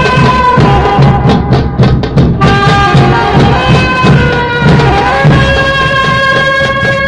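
Saxophone playing a melody of held notes over a steady drum beat, loud and close. About five seconds in it settles on one long held note.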